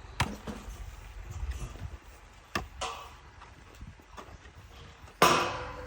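A few sharp knocks on metal, spread out and irregular. The loudest comes near the end and leaves a brief metallic ring.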